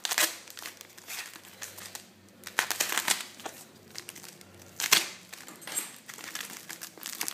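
Plastic packaging crinkling and tearing as a small taped package is cut open by hand with a small blade, in irregular crackles with sharper tears about a quarter second in, near the three-second mark and near five seconds.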